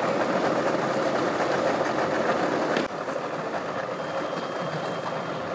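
Boat engines idling steadily at a dock. About three seconds in, the sound drops abruptly to a quieter idle, with an outboard motor running and churning water at its propeller.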